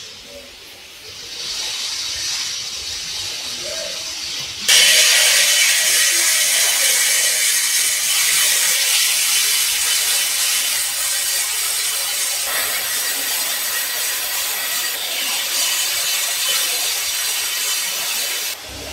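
Rope-twisting machine running fast, its large flywheel driving the hooks that twist cotton strands into rope: a steady, hissing, rasping mechanical noise. It comes in suddenly louder a few seconds in and cuts off abruptly near the end.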